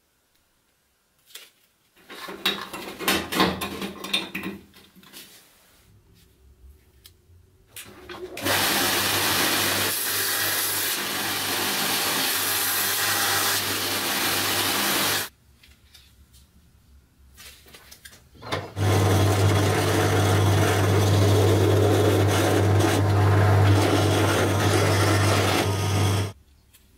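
A few seconds of handling clatter, then a belt grinder runs steadily for about seven seconds while a knife handle scale is sanded on it. After a short pause a drill press runs for about seven and a half seconds with a strong low motor hum, drilling a pin hole in the scale, and stops abruptly.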